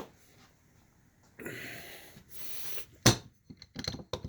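Metal parts working in a hydraulic press as a wrist pin is pushed out of a piston with a socket: two short stretches of scraping, then one sharp metallic knock about three seconds in, followed by a few lighter clicks.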